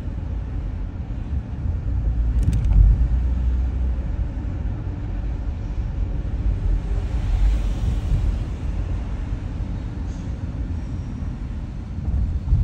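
A car driving slowly along a city street: steady low road and engine rumble, with a brief sharp click about two and a half seconds in.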